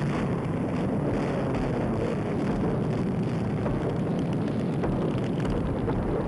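Air-raid sound: a steady heavy rumble with faint scattered crackles.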